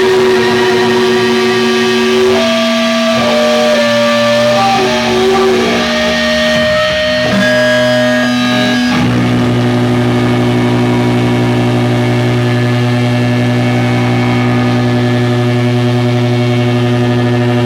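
Electric guitar amplifier feedback and a held drone at the end of a doom metal set. For the first nine seconds or so, high feedback tones come and go and shift in pitch. After that, one steady droning tone with many overtones holds unchanged.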